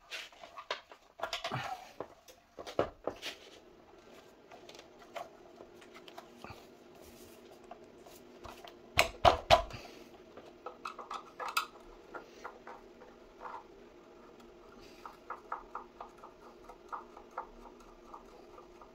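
Clicks, taps and knocks from hands and a screwdriver working on an electric scooter's plastic and metal parts. A cluster of louder knocks comes about nine seconds in, and a run of quick small clicks near the end, over a faint steady hum.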